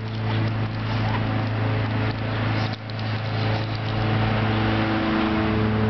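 An engine running at a steady speed with a constant low drone.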